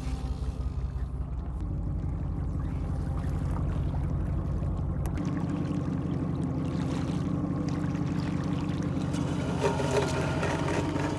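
Boat engine running steadily, a low hum whose tone shifts suddenly about five seconds in.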